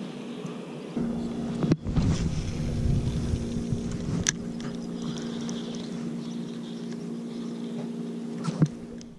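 Boat motor idling with a steady hum. A couple of sharp clicks sound over it while a spinning rod is cast and reeled.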